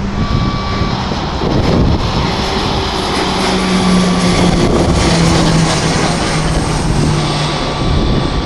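Embraer EMB-314 Super Tucano turboprop passing low overhead: a loud propeller drone with a faint high turbine whine above it, both dropping in pitch as it goes by, loudest about halfway through.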